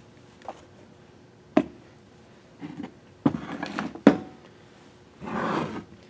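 Metal electric-motor parts handled on a workbench: a few clicks and knocks, a cluster of clatters with the loudest clunk about four seconds in as the end bell and rotor are set down, then a short scrape of about a second near the end as a part slides on the bench.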